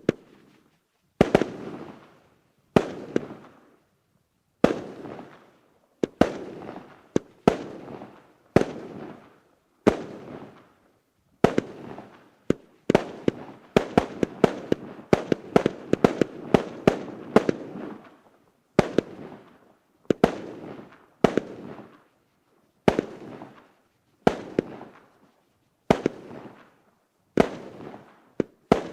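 A 120-shot, 0.8-inch fireworks cake firing: sharp reports about every one to two seconds, each followed by a fading crackle, with a rapid flurry of shots midway.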